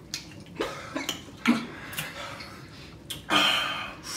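A person coughing several short times, then a longer, louder cough or harsh breath out near the end, a reaction to the burning heat of very spicy Blazin' hot wings.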